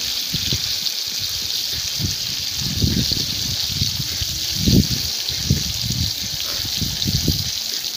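A steady rushing hiss with irregular low rumbles throughout.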